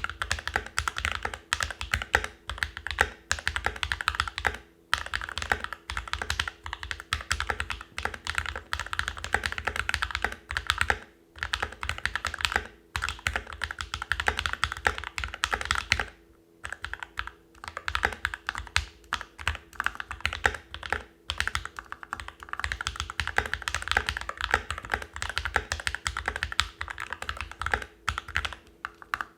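Continuous fast typing on a mechanical keyboard with lubed and filmed Alpaca v2 linear switches in a Novelkeys NK65 Entry Edition with modded stabilizers. It is a dense run of keystroke clacks broken by a few brief pauses.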